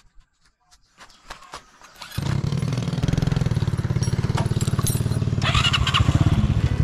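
Motorcycle engine starting about two seconds in, then running with a steady, even beat.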